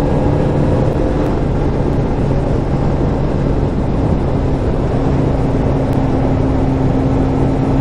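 Honda CBR600RR inline-four engine running at steady cruising revs while riding, with a constant rush of wind noise over the microphone.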